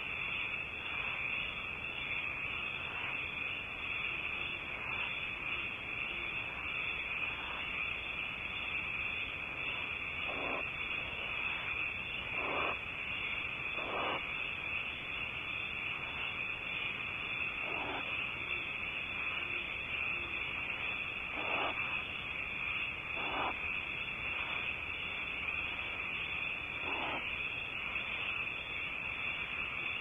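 Steady high hiss on a barn owl nest-box microphone. Short rasping sounds from the barn owl break through it every few seconds.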